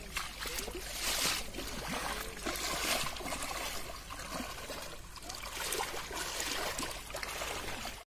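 Floodwater flowing across a flooded road, a steady rushing trickle of water that swells and eases.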